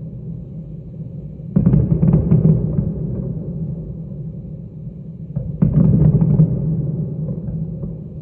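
Two sudden distant blasts about four seconds apart, one a little over a second in and one near the end, each a crackling boom with a low rumble that dies away over a couple of seconds.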